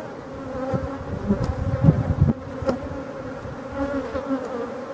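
Honeybee colony buzzing over an open hive, a steady hum of many bees. A few low bumps and a couple of light clicks come near the middle.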